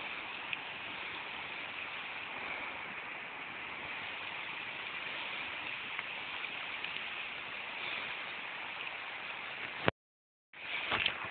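Steady rushing hiss of water, even and unbroken, cutting off suddenly near the end.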